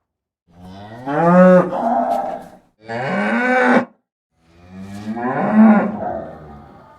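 A cow mooing three times in a row: two calls of about two seconds and one of about one second, each rising then falling in pitch, with the last one fading away.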